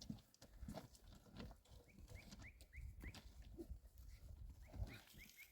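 Faint animal calls: short high chirps, about three a second, in two runs, over low rumbling and handling noise.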